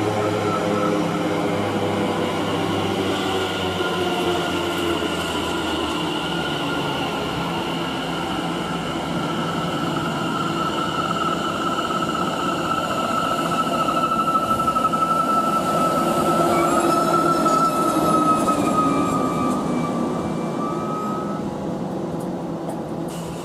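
Greater Anglia Class 720 Aventra electric multiple unit running past at the platform, its traction motors giving a steady multi-tone whine over wheel-on-rail noise. The whine falls slowly in pitch as the train slows, grows louder for a few seconds past the middle, and cuts out shortly before the end.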